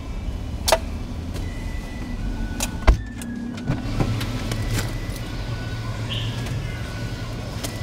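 Clicks and knocks of someone climbing into a parked car's driver seat with a bag, with one heavy thump about three seconds in, over a low steady rumble.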